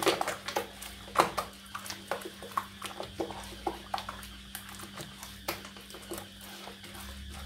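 A bare hand mixing a runny batter of eggs, oil and sugar in a glazed earthenware dish: irregular wet slaps and clicks, several a second, as the fingers work through the liquid against the clay.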